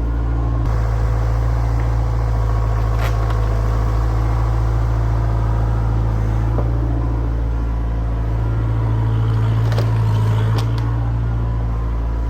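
Excavator engine running steadily, with a few short knocks from the digging.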